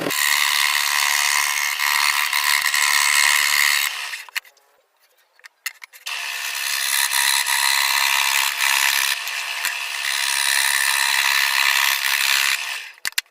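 A power tool running in two long steady bursts, the first about four seconds and the second about seven, with a short silence between.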